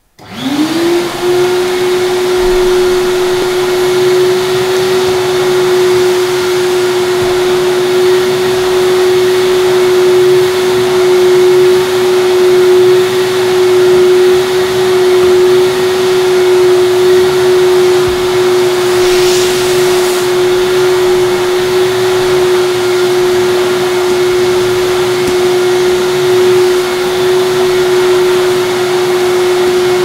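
Vacuum cleaner switched on: its motor spins up within the first second to a steady whine and then runs steadily with a loud rush of air. About two-thirds of the way through there is a brief rise in hiss.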